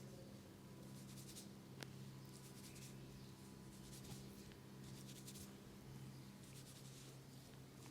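Fingers rubbing through hair and over the scalp during a head massage: a run of faint, soft scratchy strokes about once a second over a low steady hum, with one sharp click about two seconds in.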